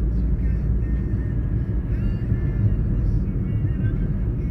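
Steady low rumble of a moving vehicle heard from inside the cabin, with faint music over it.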